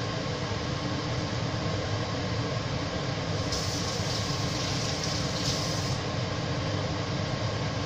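Steady rushing kitchen noise from a lidded pan of fish curry cooking on an induction hob, with a brighter hiss for about two and a half seconds in the middle.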